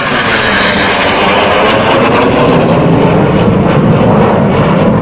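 Loud, steady jet roar of a Dassault Rafale fighter's twin turbofan engines as it flies past overhead and away.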